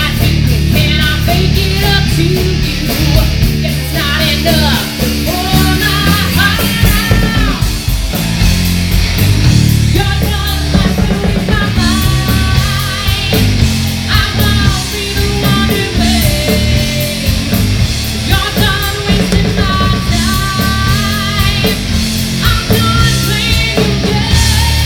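A rock band playing live, with distorted guitars, bass, drums with steady cymbal hits, and a lead vocalist singing.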